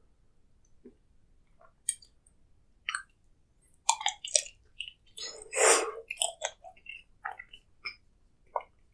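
Close-miked ASMR chewing, with wet mouth clicks. It is sparse at first, then turns busy and dense from about four seconds in, with one louder, longer burst of chewing a little past halfway.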